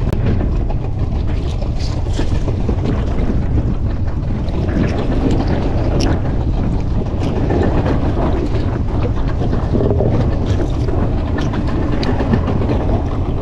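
Strong wind buffeting the microphone on an open fishing boat at sea, a steady low rumbling roar with scattered light clicks and knocks.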